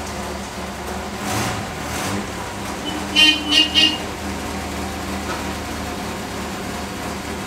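1948 Ford Prefect's 1172cc sidevalve engine idling steadily, with three short toots of a car horn a little over three seconds in.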